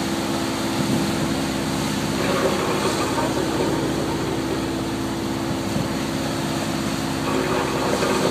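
Fishing boat's engine running steadily under way, a constant drone, with an even rush of wind and water.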